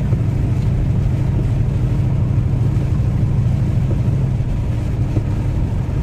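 Steady engine and road drone heard from inside a moving vehicle's cab: a constant low hum with no breaks.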